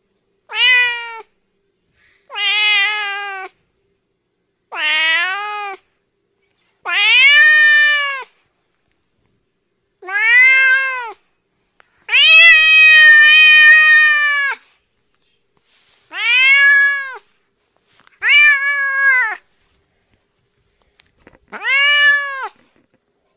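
Domestic cat meowing: nine separate meows, each rising and then falling in pitch, with a pause between them. Most are about a second long; one in the middle is drawn out to about two and a half seconds.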